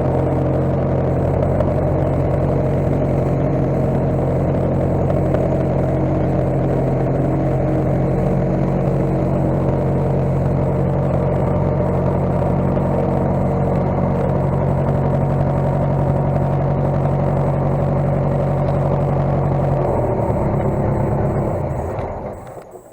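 Case skid steer engine running steadily, then dropping to a lower idle about 20 seconds in and shutting off near the end.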